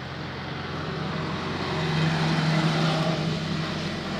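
Large Bhogi bonfire burning with a steady roar, a low hum underneath that swells about two seconds in.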